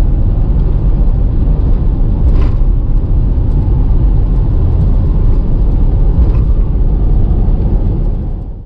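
Car driving at road speed: a loud, steady rumble of road and engine noise.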